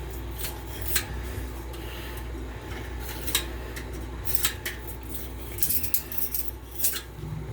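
A blade cutting and scraping cured silicone off aquarium glass: scattered short clicks and brief scrapes, a few close together near the middle and toward the end.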